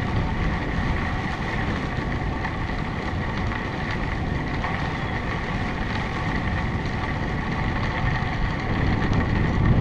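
Wind rumbling over a bike-mounted camera's microphone, mixed with the noise of bicycle tyres rolling on a gravel trail: a steady, heavy noise without any change.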